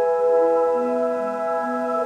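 Ambient relaxation music: long sustained tones layered into soft chords, with lower notes shifting slowly from one to the next.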